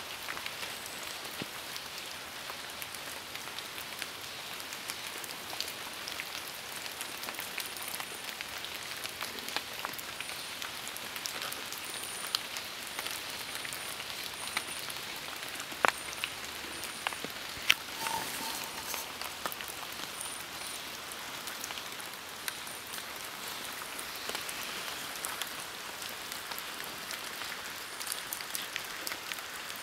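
Steady rain falling on forest foliage and ground: an even hiss with many individual drops tapping close by.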